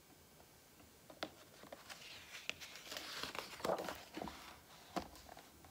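Pages of a hardcover picture book being turned by hand: a soft, faint paper rustle with a few light clicks and taps.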